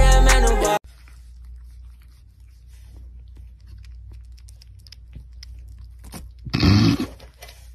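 Kittens eating canned tuna from the tin, faint small chewing and crunching clicks. A brief louder noise comes about six and a half seconds in. Music plays for the first second and cuts off suddenly.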